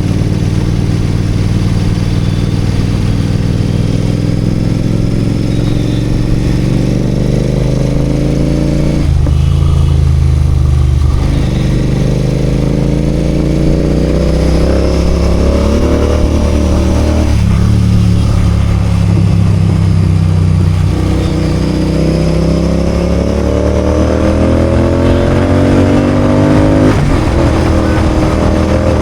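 Royal Enfield Continental GT 650's parallel-twin engine under way, its note climbing slowly over several seconds and dropping back sharply three times, about nine, seventeen and twenty-seven seconds in, as the revs build and fall between gear changes.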